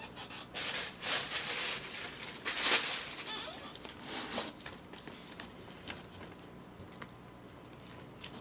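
A plastic takeout lid and tray handled, then a fork stirring bibimbap in the plastic tray: a few rustling, scraping bursts in the first three seconds, fainter scrapes and clicks after.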